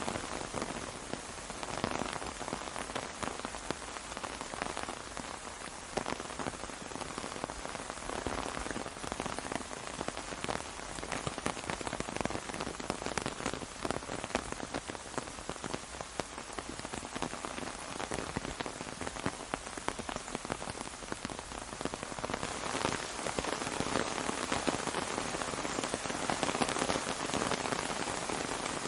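Steady rain drumming on an umbrella overhead: a dense patter of many small drop strikes, growing a little louder near the end.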